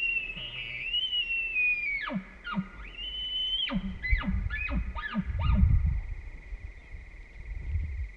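Bull elk bugling: a long high whistle that falls away about two seconds in, a shorter second whistle, then a quick run of chuckles that each sweep down in pitch. A faint steady high-pitched hum runs underneath.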